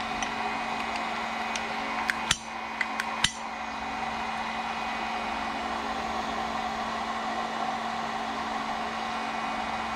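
A handful of sharp clicks and knocks about two to three seconds in, from handling the airsoft Walther P99 pistol, over a steady whir of a fan or blower.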